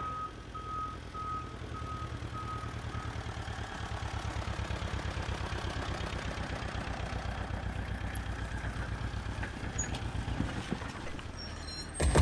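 Small tractor engine running with a steady chugging rumble, and a reversing alarm beeping for the first three seconds. A loud crash comes right at the end.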